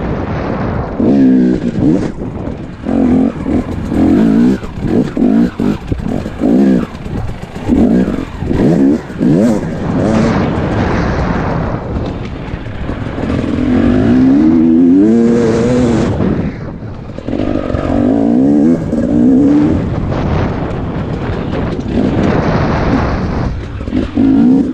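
Enduro dirt bike engine heard from the rider's helmet, revving up and down over and over as the throttle is opened and shut, with a few longer climbs in pitch, the clearest around the middle.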